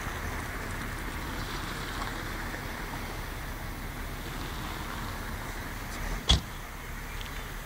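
Steady outdoor background noise with one sharp knock about six seconds in.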